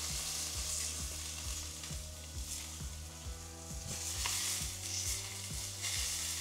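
Pork schnitzel strips frying in hot oil in a nonstick pan: a steady sizzle with frequent small pops and crackles.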